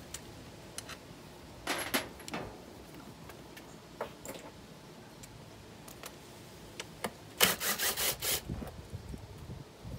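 Cordless Makita drill with a socket run in a quick series of short bursts near the end, backing out 10 mm bolts from an outboard's intake manifold. Earlier, a few clinks and rubs of tools being handled.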